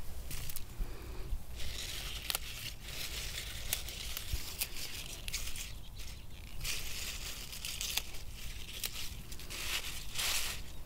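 Spinach leaves being picked by hand and laid in a wire basket: crisp snapping and tearing of the stems with leafy rustling, in several short bouts.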